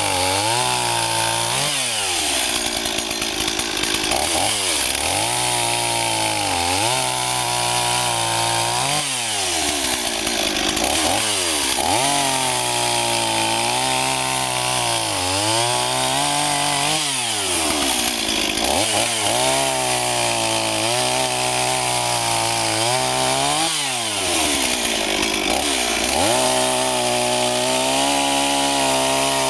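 Stihl 026 two-stroke chainsaw with an 18-inch bar, run at high throttle while cutting through a log. Its engine pitch repeatedly drops as the chain bites in under load, then climbs back up.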